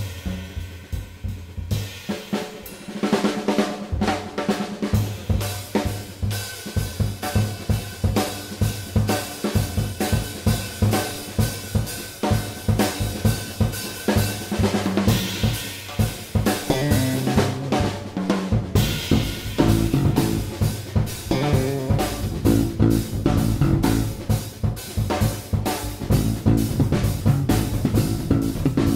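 Background music with a steady drum-kit beat and a bass line.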